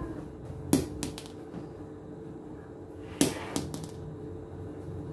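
Two small plastic toy balls dropped onto a tiled floor, one about a second in and the other about three seconds in. Each lands with a sharp knock and then bounces two or three more times in quickening, softer knocks, over a steady low hum.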